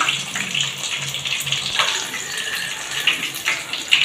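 Chicken chap deep-frying in hot refined oil in a kadai: a steady bubbling sizzle with a few sharper crackles, and a metal spatula scraping in the pan near the end as the piece is turned.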